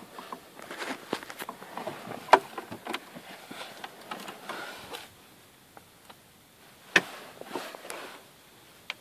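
Scattered clicks, knocks and rustles from handling things inside a car cabin, with two sharper knocks about two and seven seconds in. The sounds are busier for the first five seconds, then quieter. No engine running is heard.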